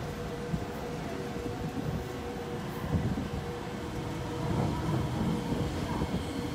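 Kawasaki C151A electric multiple unit train pulling into the station, a rumble of wheels and running gear that grows louder about four and a half seconds in as the cars pass along the platform.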